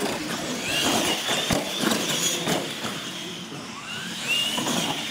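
Radio-controlled monster trucks racing on a concrete floor: short rising motor whines as they speed up, with clatter and knocks from the trucks and a sharp thud about a second and a half in.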